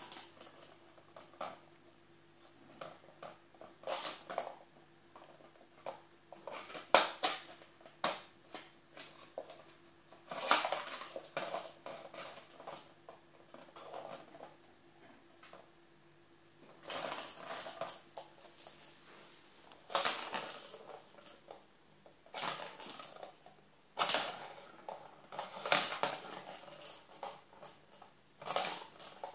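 Plastic ball-track cat toy clattering as two kittens bat at it, the balls rattling around the track in irregular bursts, with a sharp knock about seven seconds in.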